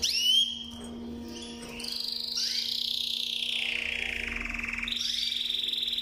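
Canary singing: a sharp rising note at the start, then from about two seconds in a long rolling trill that slides down in pitch, turning near the end into a faster, level trill. A faint steady hum runs beneath it.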